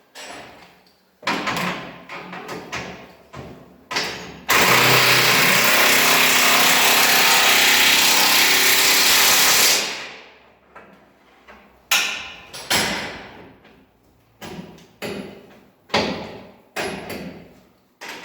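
Electric drill boring a hole in metal for a bolt: short trigger bursts, then a steady run of about five seconds that winds down, then more short bursts.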